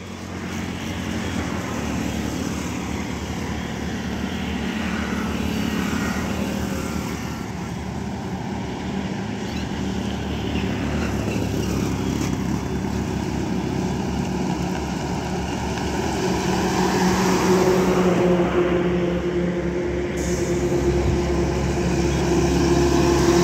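Highway traffic with a diesel goods truck approaching: a steady low engine drone that grows louder over the last several seconds as the truck nears.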